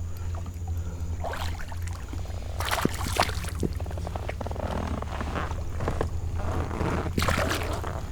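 Water splashing and dripping with irregular rustles, knocks and a few sharp clicks on a kayak as a freshly caught bass is handled, over a steady low hum.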